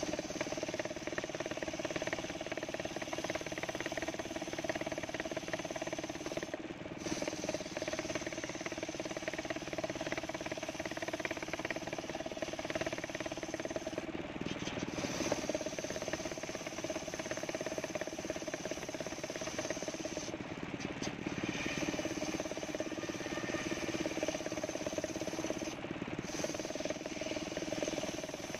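Homemade circular saw bench running steadily and ripping coconut wood lengthwise: a constant machine drone with the hiss of the blade cutting. The hiss dips briefly every six or seven seconds.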